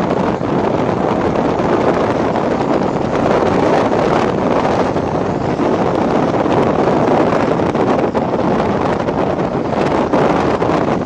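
Strong wind blowing across the camcorder's microphone: a loud, steady rushing without a break.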